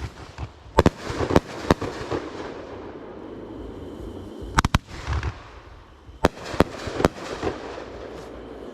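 Fireworks bursting: clusters of sharp bangs about a second in, around halfway and again near the end, with crackling in between.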